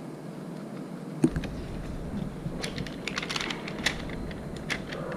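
A single knock about a second in, then a run of small, irregular crackling clicks as a puffy sticker is peeled off its plastic-backed sheet and handled.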